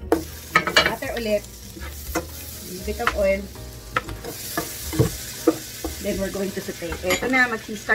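Food sizzling as it sautés in a frying pan while a utensil stirs and scrapes through it, with a sharp knock of the utensil against the pan about five seconds in.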